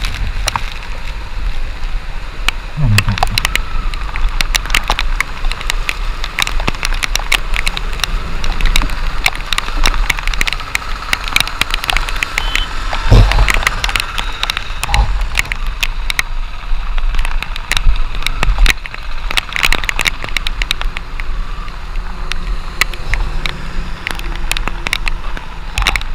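Motorcycle riding through heavy rain: many rapid clicks of raindrops striking the camera over a steady rumble of wind, engine and wet tyres on the road, with a louder thump about thirteen seconds in.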